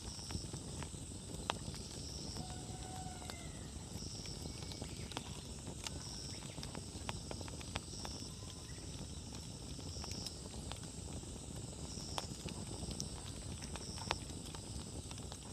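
Wood fire burning, with frequent sharp crackles and pops from the firewood over a low steady rush of flames.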